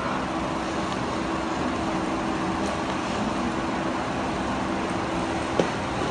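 Steady background hum and hiss, even in level throughout, with one faint click about five and a half seconds in.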